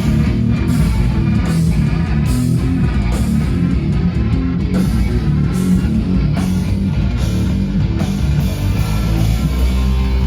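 A rock band playing loud, heavy guitar music live, with electric guitar and drums.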